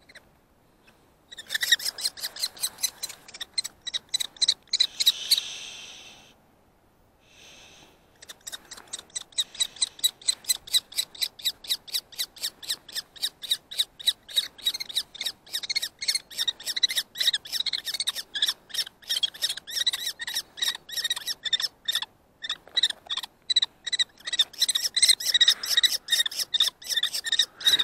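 Common kestrel calling: a fast series of short, shrill, high notes, about four a second. They stop for about two seconds about six seconds in, then run on without a break.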